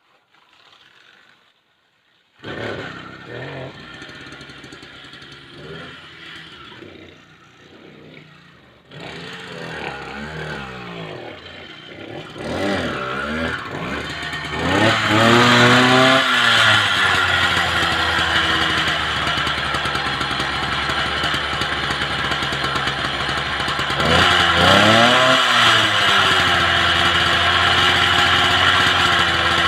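Small two-stroke motorised-bicycle kit engine being started: after a few seconds of rattling, it fires about nine seconds in and revs up and down several times. It then settles into a steady fast idle, with one more brief rev a little before the end.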